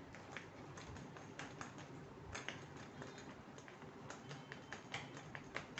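Faint, irregular clicking and tapping as a hub motor is spun fast by hand with a plastic pipe, driven as a generator.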